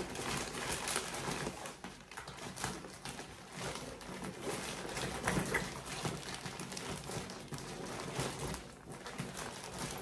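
Clear plastic bag of clothes crinkling and rustling as it is pushed and worked into a fabric backpack, with irregular handling noises throughout.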